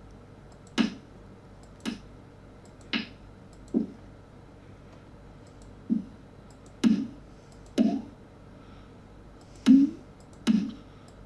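Electronic snare drum one-shot samples played back one at a time, nine short hits a second or so apart. Each hit sounds a little different, with a punchy body and a crisp noisy top.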